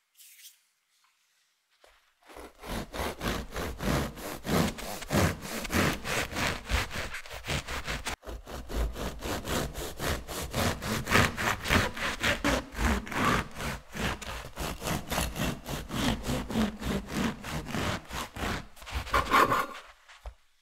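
Bread knife sawing back and forth through a crusty round country loaf, the crust crackling under quick strokes, about three to four a second. The strokes start about two seconds in, with a short break about eight seconds in.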